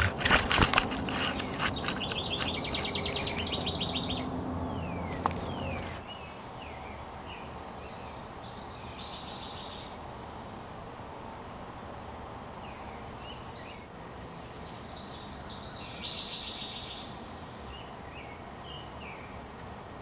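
Wild songbirds singing: a rapid trill repeated three times, several seconds apart, with short downslurred calls between. Several loud knocks and a low rumble come in the first seconds, and the rumble drops away about six seconds in.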